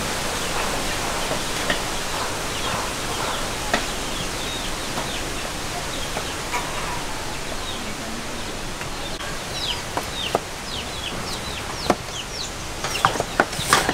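Chickens calling in short falling chirps, sparse at first and many more in the second half, over a steady background hiss. A few sharp clicks near the end.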